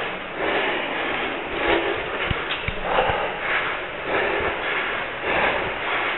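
A stair runner panting hard, about two breaths a second, with a few dull footfalls on the steps near the middle.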